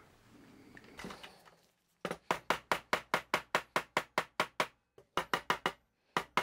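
Quick, light hammer strikes on a fork's bent metal handle loop resting on a steel bench block, about five a second. They start about two seconds in, pause briefly near five seconds, then a few more follow.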